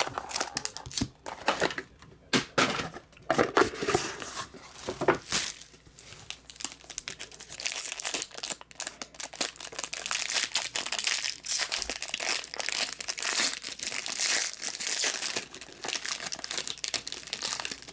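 Silver foil wrapper of a trading-card pack crinkling and tearing as it is worked open and crumpled by hand, in quick irregular rustles and crackles.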